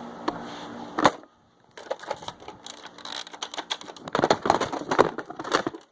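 Nerf foam-dart blasters being fired and worked, giving a quick run of clicks and knocks. A hum and one loud knock come about a second in; the clicking is thick in the second half.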